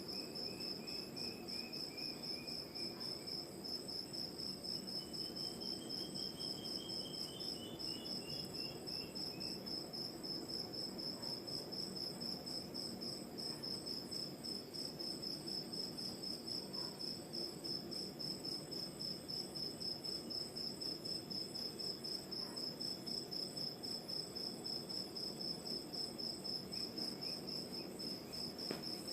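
Crickets chirping in a steady, pulsing high chorus over a low, even wash of distant ocean surf. A few short descending trills come from another night caller near the start and again from about five to nine seconds in.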